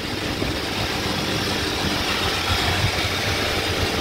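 Water chiller refrigeration machinery running steadily with a low hum.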